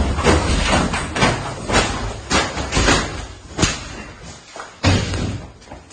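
A rapid, irregular series of thuds and knocks, several a second, with the hardest ones about three and a half and five seconds in, thinning out near the end.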